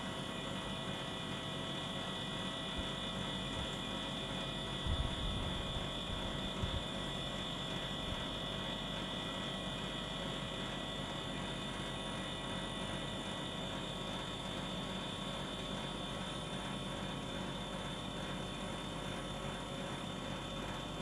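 Outdoor unit of a Godrej air conditioner running steadily, a constant whir with a high hiss and several steady tones, which the owner takes for a noise problem. A few low thumps about five to seven seconds in.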